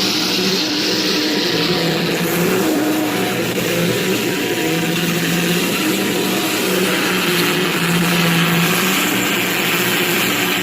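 Electric machine running under power: a steady motor hum that swells and eases every few seconds, over a continuous hiss.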